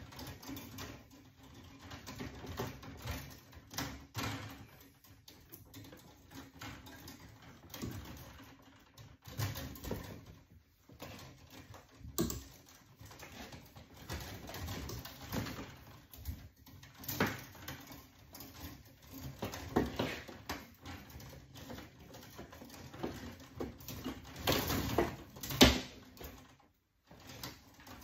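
Stiff electrical cables being handled and bent inside an open breaker panel: irregular rustling and scraping, with scattered small clicks and knocks, the sharpest one near the end.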